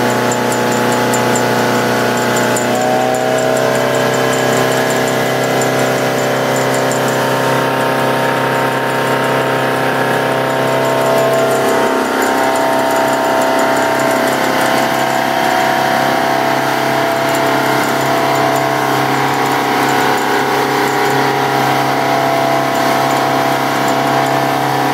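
3.0-litre MerCruiser TKS four-cylinder sterndrive engine running steadily with the boat at planing speed. Its note shifts slightly about three seconds in and dips briefly around twelve seconds.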